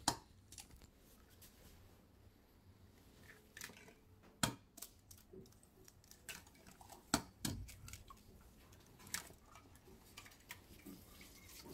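Eggs being cracked one after another into a ceramic bowl: a few sharp shell taps and clicks, seconds apart.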